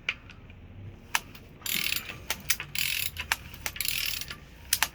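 Ratchet wrench clicking in short bursts as the Mazda 3.0 engine's crankshaft is rocked back and forth by hand, with sharp single clicks between the bursts. These are the timing chain tensioners moving in and out, which the owner doubts is normal because there is slop in the new chains.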